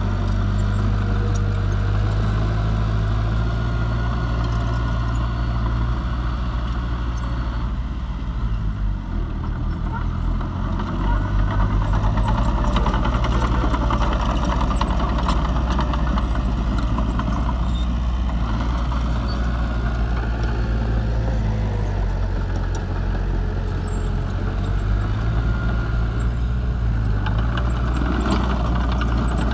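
Diesel engines of a small crawler bulldozer and dump trucks running steadily. The engine note drops and rises again a few times as the machines work.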